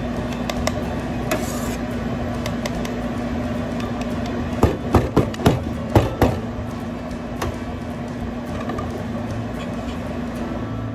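A steady low hum throughout, with a quick run of about six sharp knocks a little before halfway, as yogurt is spooned into a clear plastic cup.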